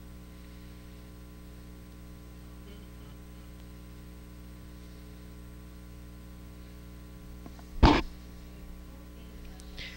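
Steady electrical mains hum on the sound system, with one short loud thump of a handheld microphone being handled about eight seconds in.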